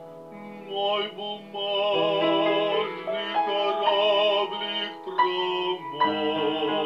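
Male classical singer singing with vibrato to grand piano accompaniment; the piano sounds alone for about the first second before the voice comes in.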